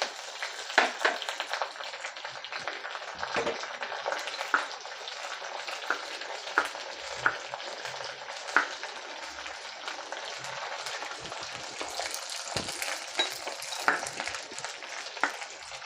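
Dried red chillies, mustard seeds and curry leaves sizzling steadily in hot groundnut oil in a kadai, with many sharp clicks and taps scattered through as they are stirred.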